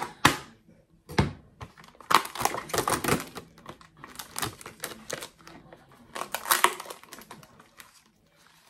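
Plastic ground-turkey package being cut open with a knife and its plastic wrapper pulled off: crackling and crinkling in clusters of quick clicks with short pauses between, dying away near the end.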